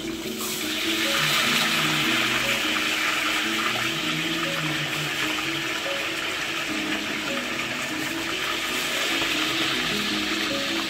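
Hot oil in a karahi sizzling steadily as fish deep-fry, with background music playing underneath.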